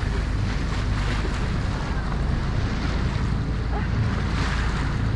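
Sea water rushing and splashing along a sailboat's hull as it rolls through swell, with wind buffeting the microphone. The splashing swells up about four and a half seconds in.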